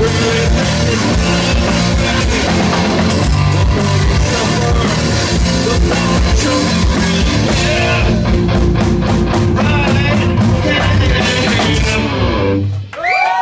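Live grunge band playing loud: distorted electric guitars, bass and a drum kit with crashing cymbals, in an instrumental outro. The song stops abruptly about a second before the end.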